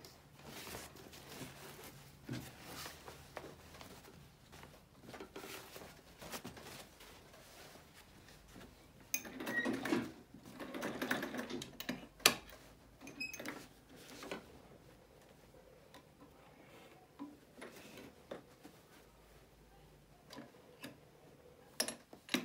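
Domestic sewing machine stitching a dart in short runs with pauses, busiest about ten seconds in, with scattered clicks and a sharp click soon after.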